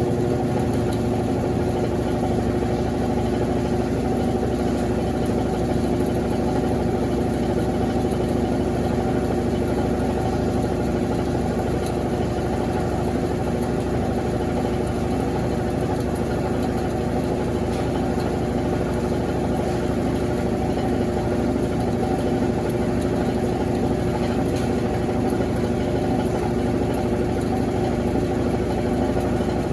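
Cônsul CWS12 12 kg washing machine running with a steady motor hum and a low, evenly wavering drone, in the stage after the wash drain and before the first rinse fills.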